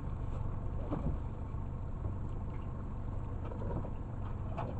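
Steady low rumble with water sounds around a small open fishing boat, and a few faint knocks, one about a second in and one near the end.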